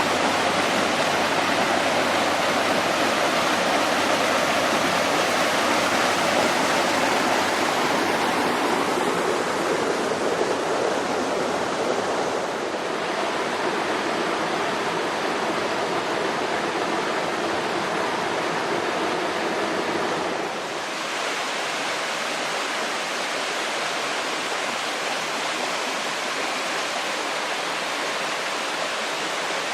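Mountain valley stream rushing over rocks, a steady rush of water that steps down a little in loudness about twelve seconds and again about twenty-one seconds in.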